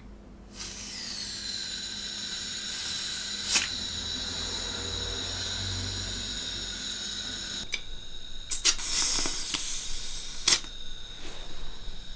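Airsoft gas blowback magazine being charged from a gas can: a steady hiss with high whistling tones as gas flows in through the valve, with a sharp click about three and a half seconds in. Around nine to ten seconds in come several louder spurts of escaping gas hiss.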